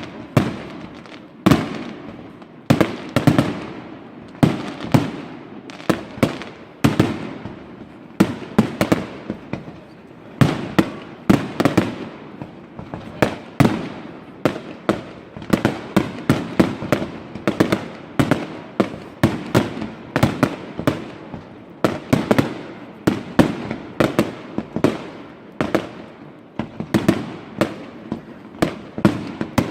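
Fireworks display: a rapid, continuous barrage of aerial shells bursting, several sharp bangs a second, each echoing briefly.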